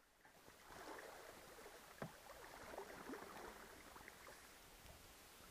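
Very faint canoe paddling: paddle strokes and water moving against the hull, with a light knock about two seconds in.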